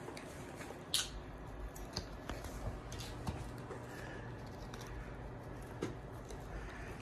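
Shepherd dog gnawing a hard chew bone: wet chewing with irregular sharp clicks of teeth on the bone, the loudest about a second in.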